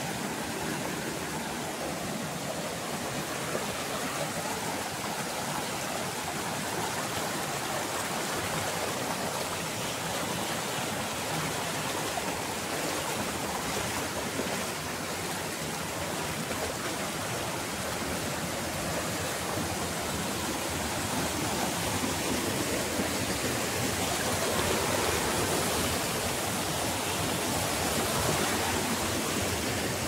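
Shallow mountain stream rushing over rocks and small cascades, a steady rush of water that grows a little louder in the second half.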